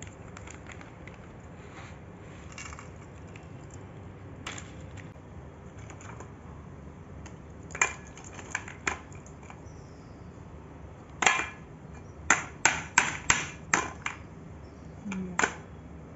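Dry lumps of multani mitti (Fuller's earth) knocking against a steel bowl and against each other as they are handled: scattered sharp knocks and clinks, with a quick run of them in the second half, over a faint steady hiss.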